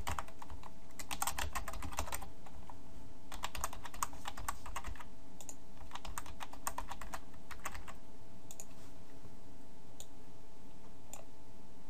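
Computer keyboard typing in three quick runs of keystrokes over the first eight seconds, then only a few single clicks near the end.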